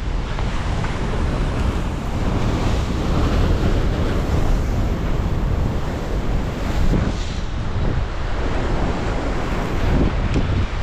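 Sea swell washing and breaking against a rock wall, with strong wind buffeting the microphone as a steady, heavy rush that surges now and then.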